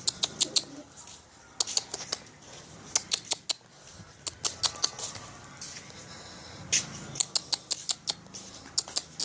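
Pigeons pecking at grain on a hard surface: quick, sharp, irregular clicks and taps coming in little clusters.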